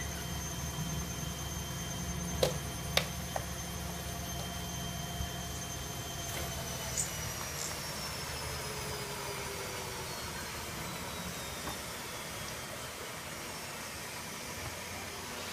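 Washing machine motor and drum running with a low hum and a steady whine, with a few sharp clicks a couple of seconds in; about six seconds in the whine starts falling in pitch as the drum winds down.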